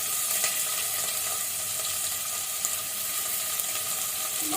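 Onions frying in hot oil and ghee with whole spices in a pressure cooker base: a steady sizzle with faint crackles.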